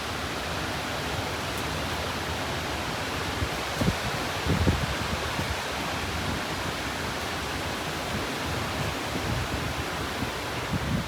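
Severe-storm wind making a steady rushing noise, with gusts buffeting the microphone about four to five seconds in and again near the end.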